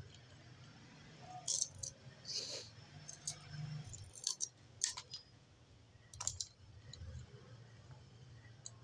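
Spanner and pliers working a nut on a kitchen tap: scattered short metallic clicks and scrapes, about a dozen of them, over a low steady hum.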